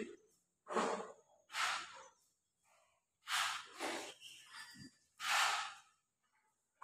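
A person's breathing: four short, noisy breaths with near-silent gaps between them.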